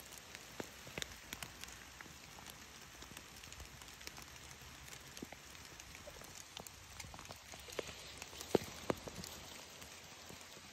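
Rain falling on the forest floor and leaves: a steady patter with scattered drips tapping, two of them louder about three-quarters of the way through.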